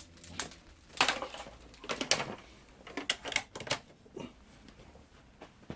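Irregular sharp clicks and knocks, about a dozen, most of them in the first four seconds, from handling the Hoover Senior vacuum cleaner's flex and plug while getting it plugged in; the motor is not yet running.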